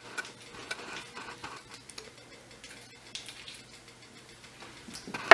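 Faint light clicks and taps of a measuring spoon working salt out of a small container over a glass dish, with one sharper knock near the end.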